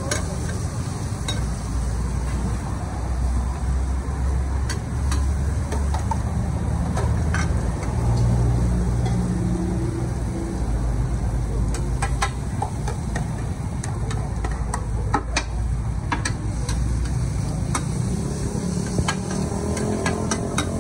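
Pad thai noodles and eggs frying on a large, flat, oiled street-food wok, with metal ladle and spatula clinking and scraping on the pan now and then, over a steady low rumble.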